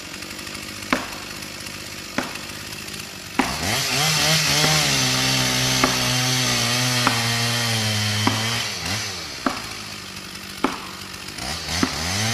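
Steady blows of a maul driving felling wedges into a tree's cut, about one sharp strike every second and a quarter. A chainsaw picks up speed a few seconds in and runs with its engine pitch rising and falling, drops back around two-thirds of the way through, and picks up again near the end.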